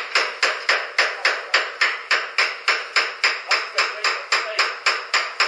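Rapid, evenly spaced hammering, about four sharp strikes a second.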